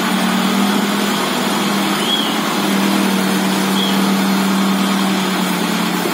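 Kubota MU5501 tractor's four-cylinder diesel engine running steadily with a droning tone while the front loader works.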